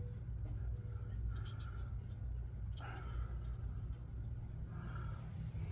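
Steady low hum with a few faint clicks and rustles.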